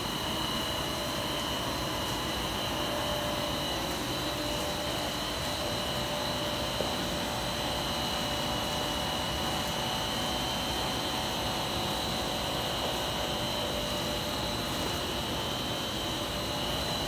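Air bubble film (bubble wrap) machine running: a steady, even drone and hiss with two steady high whines over it.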